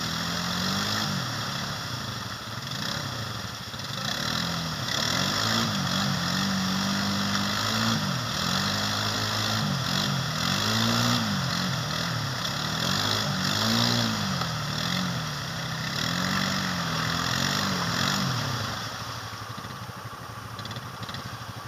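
ATV engine revving up and down over and over, about once every second or two, as the machine sits stuck deep in mud and tries to pull itself free. The revs die away about three seconds before the end.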